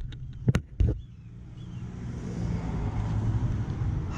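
Two sharp clicks of scooter parts being handled, then a steady low rumble of a vehicle that slowly grows louder.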